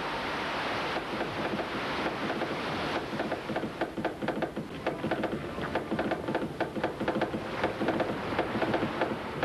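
A steady rushing roar. From about three seconds in, a rapid run of sharp irregular clicks with faint steady tones comes in over it: a telegraph key tapping out Morse.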